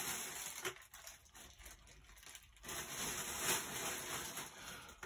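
Crinkly plastic packaging bag being crumpled and rustled, in two spells of crinkling with a quieter stretch in between.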